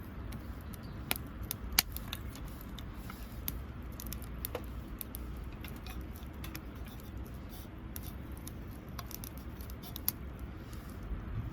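Wood campfire crackling: scattered, irregular sharp pops and clicks over a low steady rumble, with a few louder snaps.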